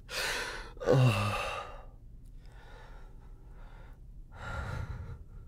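A man sighing: a breathy exhale, then a short voiced hum that falls in pitch, followed by softer breaths.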